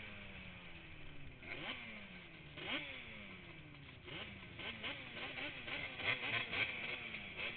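Racing quad engines revving: the pitch sinks off over about a second and then snaps sharply back up, again and again, with quicker, choppier throttle blips from about halfway in.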